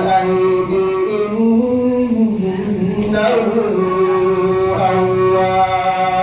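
A man's voice reciting the Quran in slow, melodic chanted recitation, holding long drawn-out notes that glide up and down in pitch.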